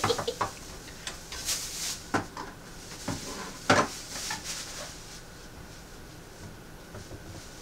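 Groceries being put away by hand: a few sharp knocks and clinks of canned goods and other items set down on a counter and in a cabinet, the loudest a little under four seconds in, with a plastic grocery bag rustling briefly.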